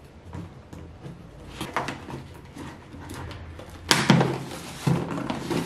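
Cardboard shipping box being torn open by hand, packing tape ripping and flaps pulled apart, in short rasps with the loudest rip about four seconds in and another about a second later.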